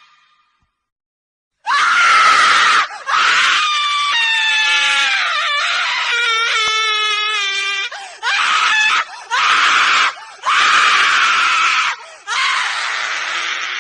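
A woman screaming: after a second or so of silence, a run of about six loud screams, one long with a wavering, sliding pitch and the rest shorter.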